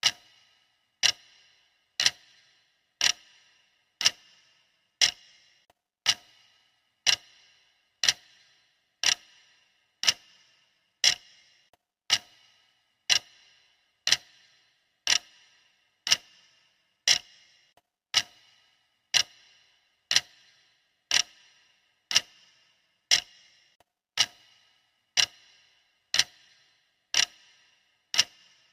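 Clock ticking steadily, one sharp tick each second, each with a short bright ring.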